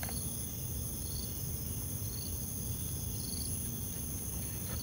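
Insect chorus, mainly crickets: a steady, high-pitched shrill of several layered tones, with a short chirp repeating about once a second.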